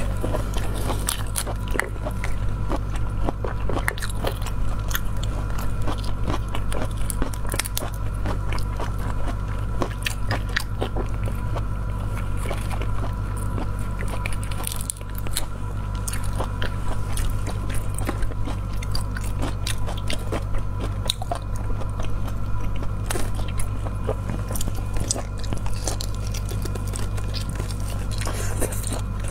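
Close-miked eating of a marinated tiger prawn: wet chewing and biting with many small crackles as the shell and flesh are pulled apart by hand, over a steady low hum.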